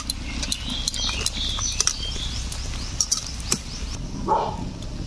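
Mushrooms boiling in water in a kadai, giving scattered small crackles and pops, with birds chirping and a short dog bark about four seconds in.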